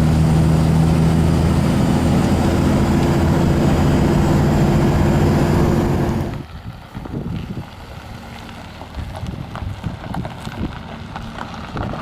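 Pickup truck towing a fifth-wheel trailer: a steady engine and road drone at constant speed, which cuts off abruptly about six seconds in. Quieter wind noise with irregular crackling follows.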